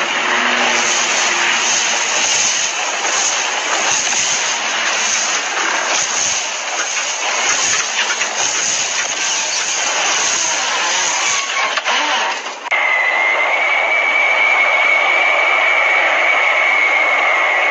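Loud rushing noise with a regular pulse about twice a second. After a sudden cut partway through, jet engines of a low-flying B-52 bomber run with a steady high whine that rises slightly near the end.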